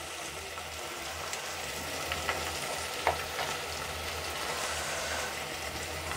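Peas and chopped tomatoes sizzling steadily in hot ghee in a steel pot, with a few faint clicks about one, two and three seconds in.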